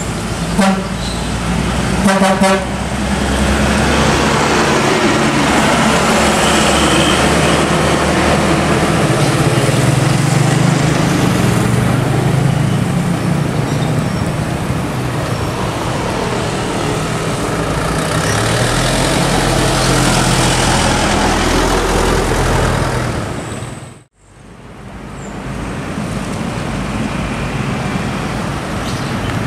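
Mercedes-Benz OH 1521 coach's diesel engine running as the bus passes and pulls away, its pitch rising and falling through the gears, with two short horn toots near the start. The sound drops out for a moment near the end.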